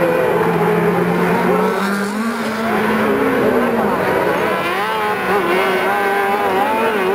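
Several kartcross buggies racing on a dirt track, their high-revving motorcycle engines overlapping, each note rising and falling in pitch as the cars accelerate and back off.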